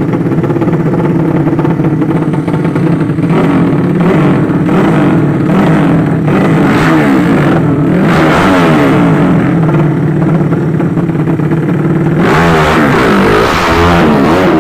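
Drag-racing motorcycles with horizontal-cylinder ('sleep engine') 200cc engines at full throttle, loud throughout. The engine note repeatedly climbs and falls, with more than one pitch line at once.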